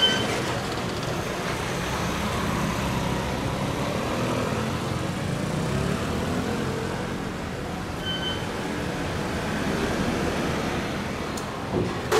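City street traffic, with scooters and cars passing. A short high beep sounds about eight seconds in.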